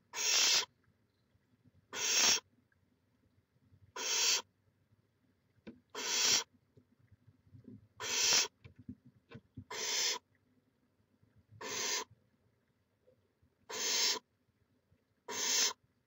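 Barn owl nestling's hissing begging call: a harsh rasping hiss about half a second long, given nine times at steady intervals of roughly two seconds.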